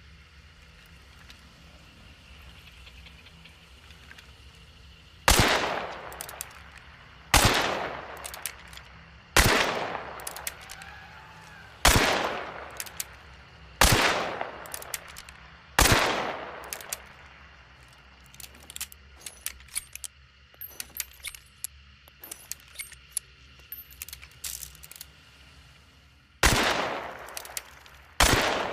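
Revolver firing six shots, about two seconds apart, each with a long echoing tail. This is followed by several seconds of small metallic clicks and rattles, then two more shots near the end.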